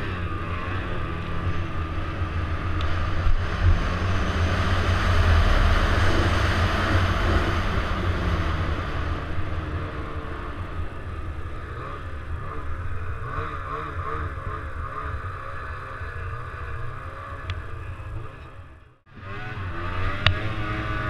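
Snowmobile engine running under throttle while riding through snow, its pitch wavering up and down as the throttle changes. It is loudest a few seconds in and eases off gradually. The sound cuts out for a moment near the end, then comes back.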